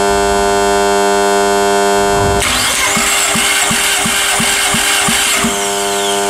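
Starter cranking a 1.6-litre 16-valve four-cylinder engine (VW/Skoda CFNA) for a compression test, with a regular pulse about three times a second. It starts about two and a half seconds in and lasts about three seconds, as the cylinder under test builds to about 12 kg/cm². A steady electrical hum runs underneath.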